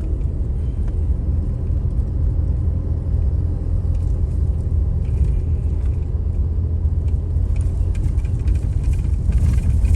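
Car on the move over a rough, rocky dirt track, heard from inside the cabin: a steady low rumble of engine and tyres.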